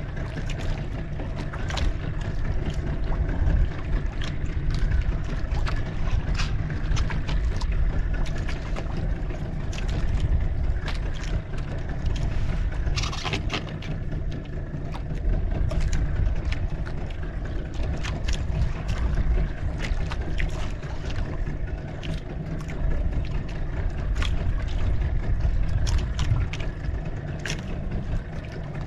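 Boat engine running steadily with a deep low rumble, with scattered small clicks and knocks over it.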